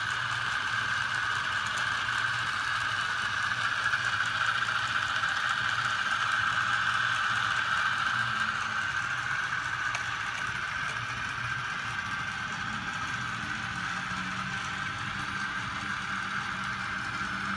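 Small 12-volt brushed DC electric motor running steadily with a whine and a low hum, spinning a shaft that drives a mechanical revolution counter and a disc.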